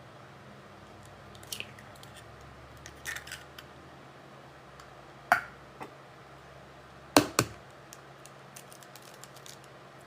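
Kitchen things being handled while baking: scattered sharp clicks and knocks, with a louder single knock about five seconds in and a louder double knock about seven seconds in.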